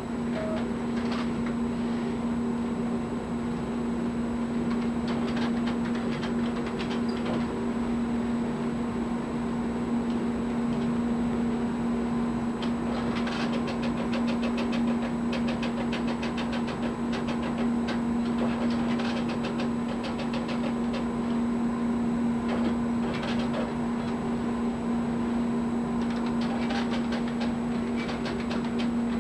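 Satellite telex terminal clattering in runs of fast mechanical clicks, from its printer and keyboard, as a link with the shipowner is set up. Under the clicks runs a steady low hum.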